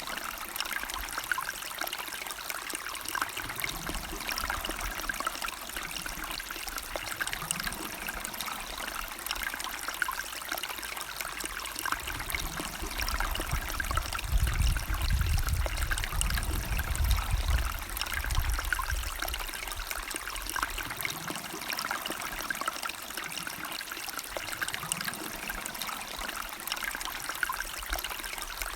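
Small river or stream running over rocks: a steady trickling, splashing rush. A deep low rumble swells in for several seconds around the middle and then fades back.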